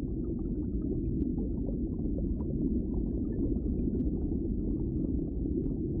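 Muffled underwater ambience: a steady low rumble of water, with a few faint clicks scattered through it.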